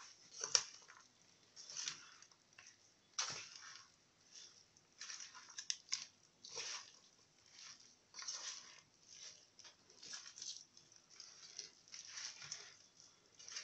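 Hands mixing raw meat chunks with sliced onion, green pepper, tomato and potato in a metal tray: faint, irregular wet squishing and rustling, a squelch every second or so as the food is turned and pressed together.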